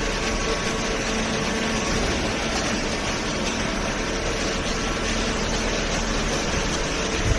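Machinery running with a steady, even hum and a constant drone of noise.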